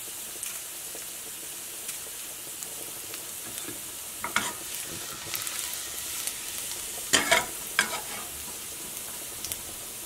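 Chopped garlic sizzling steadily in hot oil in a frying pan as it fries toward golden, with a spatula stirring and scraping the pan in short strokes about four seconds in and twice around seven to eight seconds in.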